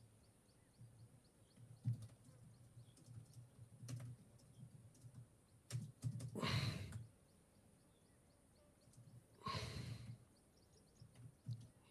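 Quiet room sound with two breathy sighs or exhalations close to a microphone, one about six and a half seconds in and one about nine and a half seconds in, amid faint scattered clicks.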